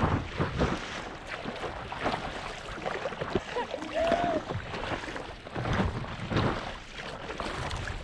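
Small waves slapping and splashing against the nose of a stand-up paddleboard, with wind buffeting the microphone. A brief faint tone rises and falls about halfway through.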